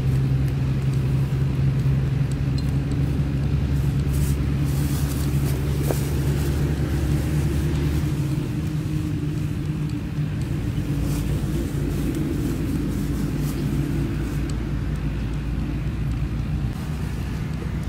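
An engine running steadily, a low hum whose tone changes about eight seconds in, with a few light clicks over it.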